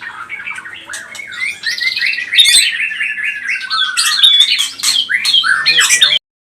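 White-rumped shama singing a fast, varied song, including a quick run of repeated whistled notes. The song cuts off abruptly near the end.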